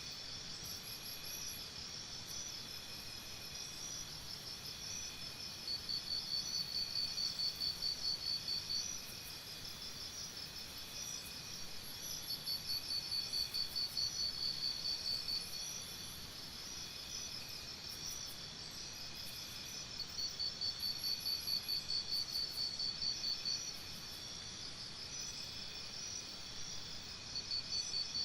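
Forest insect chorus: a steady high-pitched trilling, joined four times by a louder, rapidly pulsing trill that lasts about three seconds each time.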